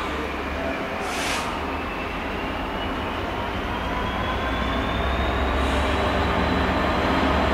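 A Class 66 diesel-electric locomotive's two-stroke V12 engine running as the locomotive approaches, a low rumble growing steadily louder. A thin whine climbs slowly in pitch throughout, and a short hiss comes about a second in.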